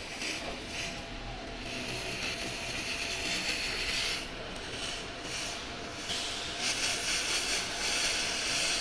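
Pulsed 200 W laser cleaner stripping paint from a car panel: a rough, high-pitched hiss as the scanning beam ablates the paint. It grows louder about two-thirds of the way in, with a faint steady hum underneath.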